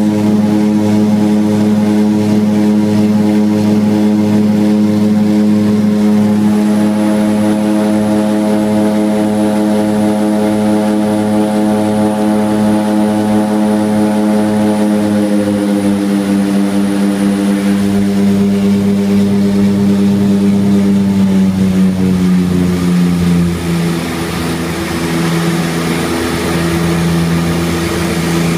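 Seaplane's propeller engines droning steadily, heard inside the cockpit. The pitch of the drone drops about halfway through and again about three-quarters in, as engine power is reduced.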